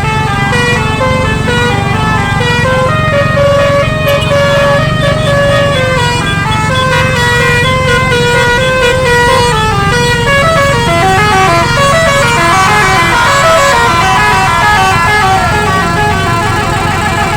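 Telolet multi-tone vehicle horn playing a continuous melody of quick stepped notes, over a steady low engine rumble.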